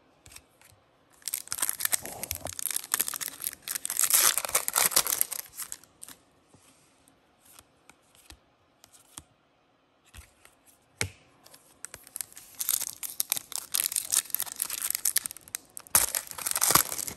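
Paper-and-plastic handling noise from trading cards and a foil card pack: two stretches of crackling, sliding and crinkling with a quieter gap of a few light clicks between them. The second stretch comes as the Topps Chrome foil pack wrapper is torn open near the end.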